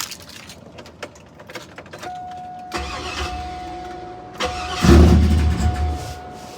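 Pickup truck engine being cranked by its starter in two bursts, about three seconds in and again, louder, about five seconds in, without catching: the truck won't start. A steady electronic tone sounds from about two seconds in.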